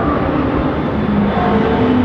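Racing car engines running hard at high revs on a circuit, with an engine note climbing in pitch near the end.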